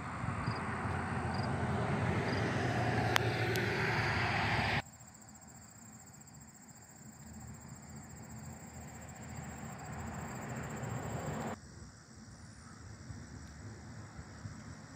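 Steady low engine rumble outdoors, loudest for the first five seconds, then dropping sharply and continuing more quietly. Faint cricket chirps tick about twice a second during the louder part.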